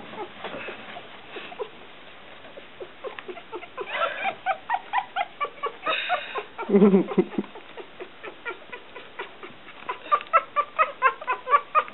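One-week-old mixed-breed puppies (smooth coat collie, coonhound and Pomeranian) squeaking and squealing in quick runs of short, high cries, several a second. There is a longer, lower cry about seven seconds in, and the squeaking picks up again near the end.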